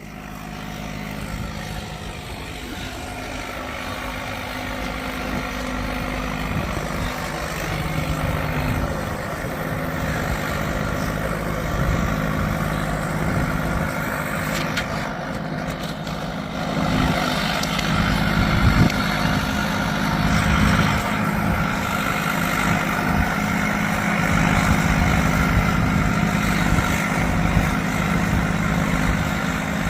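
Bulldozer's diesel engine running steadily, growing louder over the first half, with wind buffeting the microphone.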